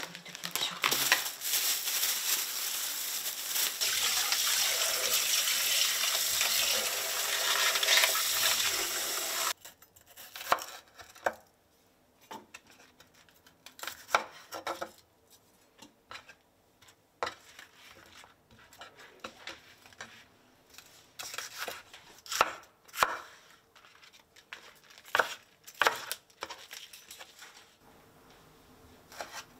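Plastic bag crinkling loudly as bok choy is handled in its wrapping, stopping abruptly about nine seconds in. After that, scattered sharp taps of a kitchen knife on a cutting board as the bok choy is cut.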